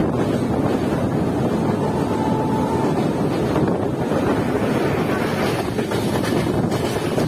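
Passenger train running at speed, heard from an open coach doorway: a steady rumble of the wheels on the rails mixed with wind buffeting the microphone.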